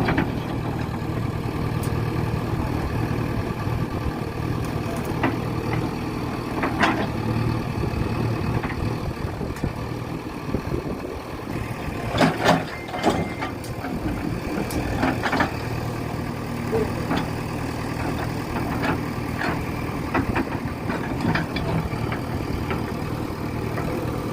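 JCB 3DX backhoe loader's diesel engine running steadily at low revs, with a few short knocks, the loudest ones about halfway through.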